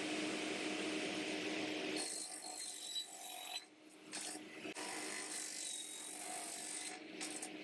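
Sliding radial mitre saw running and cutting grooves across solid-wood boards, the spinning blade rasping through the wood over a steady motor hum. The sound breaks off briefly about three and a half seconds in and again near seven seconds.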